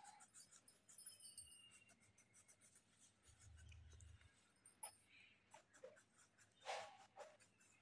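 Faint scratching of a coloured pencil on paper in quick back-and-forth strokes as a picture is shaded in, with one louder rustle near the end.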